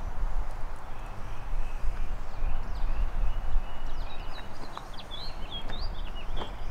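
Small birds chirping in short rising and falling calls, in two clusters, over a person's footsteps on asphalt and a low uneven rumble.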